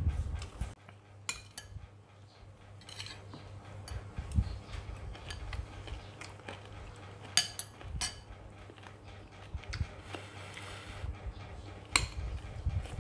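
Metal spoons clinking against a ceramic soup bowl and rice plate while eating: about five separate sharp clinks spread across a few seconds.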